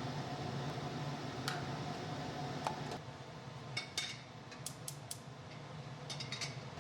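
Scattered light clicks and clinks of small hard objects, coming several in quick succession in the second half, over a steady low hum.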